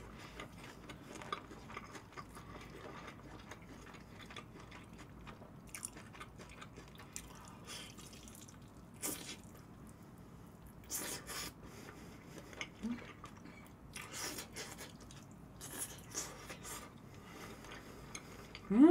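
Close-miked eating sounds of a person biting and chewing sauced fried chicken: scattered wet mouth clicks and smacks.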